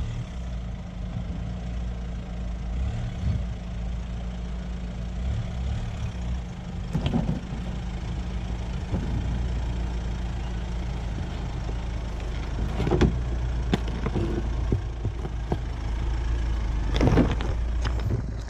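Jeep engine running steadily at low speed while crawling a 4x4 trail, with a handful of brief sharp knocks now and then, the loudest about two-thirds of the way in and near the end.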